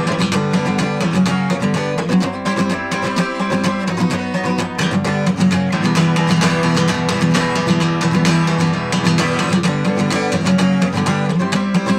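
Guitar strummed in a steady rhythm, played alone with no singing.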